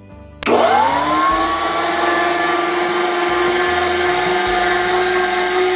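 Electric meat grinder switched on about half a second in, its motor spinning up with a rising whine and then running at a steady pitch.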